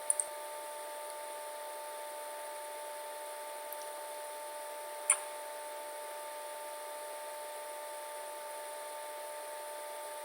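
Steady electrical hum and hiss with a few fixed tones, the background noise of the recording setup, broken by two short clicks near the start and a single click about five seconds in.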